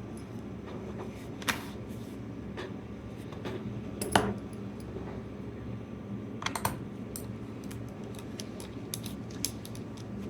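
Scattered light metallic clicks and taps of small screws, tools and parts being handled inside an opened laptop as its hard drive is taken out, over a low steady hum.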